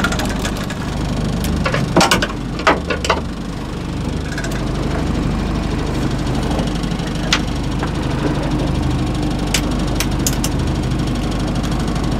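A motor running steadily at low speed while a longline is hauled aboard, with a few sharp clicks and knocks; the loudest come in a cluster about two to three seconds in.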